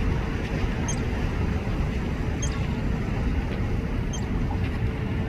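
A small songbird repeating a short, high chirp about once a second over a steady low rushing noise.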